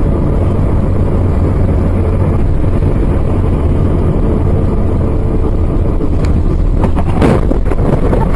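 Dashcam recording of a car's steady engine and road rumble, then from about six seconds in a few knocks and a loud crash of impacts around seven seconds as the car crashes.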